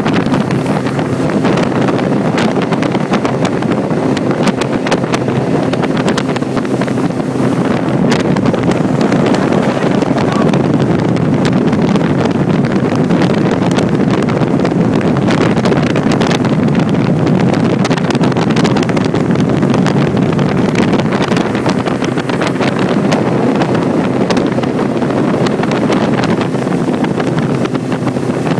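Motorboat under way: its engine running steadily under the rush of water past the hull, with wind buffeting the microphone.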